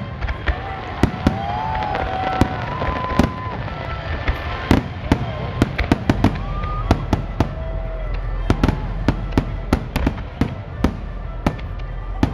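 Aerial fireworks shells bursting in rapid, irregular succession, dozens of sharp bangs over a few seconds.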